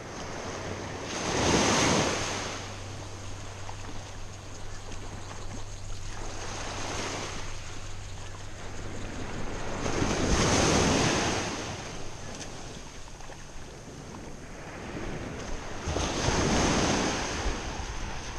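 Small surf breaking and washing up a sandy beach in three swells several seconds apart, over a steady hiss of water and a little wind on the microphone.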